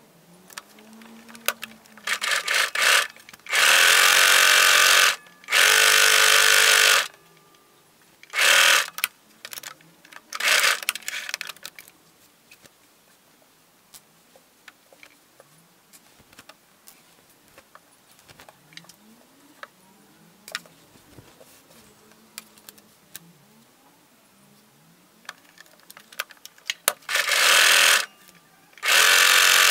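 Electric sewing machine stitching in short runs of one to two seconds: several in the first eleven seconds, then two more near the end. Faint clicks of the fabric being handled fill the quiet gaps between runs.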